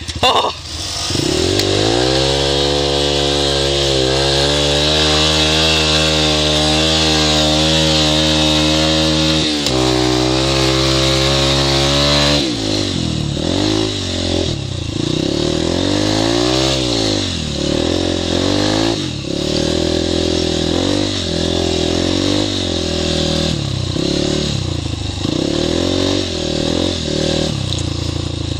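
Dirt bike engine running close by, holding a steady note for about ten seconds, then revving up and dropping back again and again as the bike is ridden along a sandy trail.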